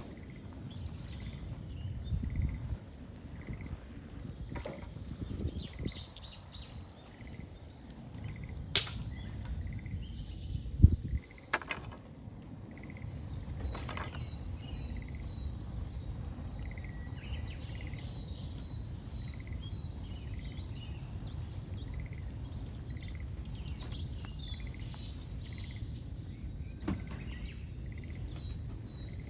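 Small birds chirping and singing over the low steady rumble of a burning bonfire, with a few sharp snaps from the fire in the first half.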